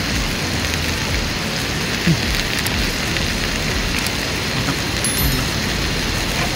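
Steady outdoor hiss of even noise spread across low and high pitches, like rain or running water, with a short thud about two seconds in.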